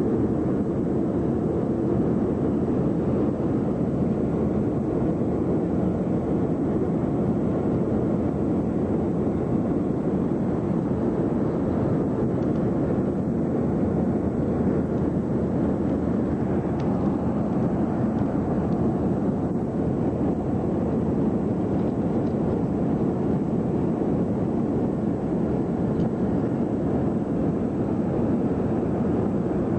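Steady cabin noise of an airliner in flight: the even rumble of engines and airflow heard from inside the cabin by a window seat.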